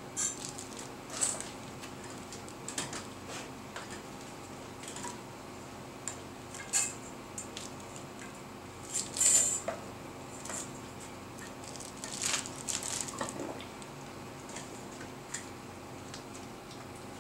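Scattered light metallic clinks and knocks as an anodized aluminum chime tube and its fittings are handled in a hot sealing tank, the loudest cluster about nine seconds in, over a steady low hum.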